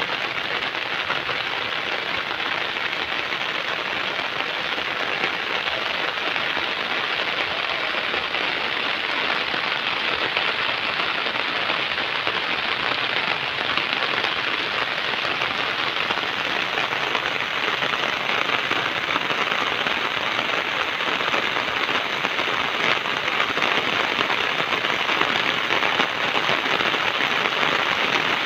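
Steady rain falling on garden foliage and lawn, an even hiss that grows a little louder toward the end.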